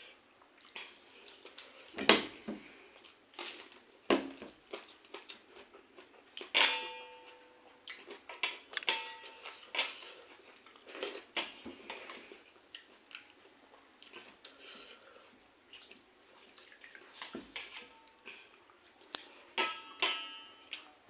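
Eating sounds: scattered clinks and knocks of metal plates and bowls, a few of them ringing briefly, with chewing between.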